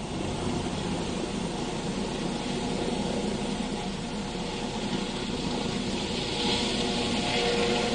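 Helicopter turbine and rotor running steadily on the ground, growing louder near the end.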